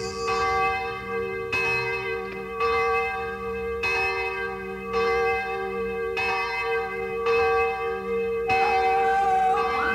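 Bells struck one after another, a new stroke about once a second, each ringing on over a steady held hum. Near the end the strokes stop and wavering, gliding tones take over.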